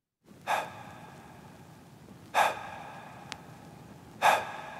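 Three sharp gasping breaths in the opening of a song, evenly spaced about two seconds apart, each fading quickly, with a faint tick between the second and third.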